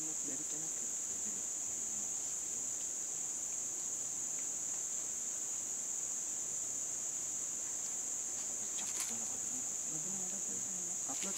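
Forest insect chorus: one steady, high-pitched buzzing drone that holds unbroken throughout.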